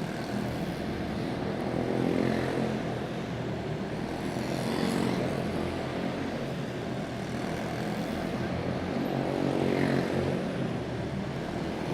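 Several quarter midget race cars' small single-cylinder Briggs & Stratton Animal engines buzzing at racing speed as the field laps the track. The sound swells and fades in pitch a few times as cars pass by.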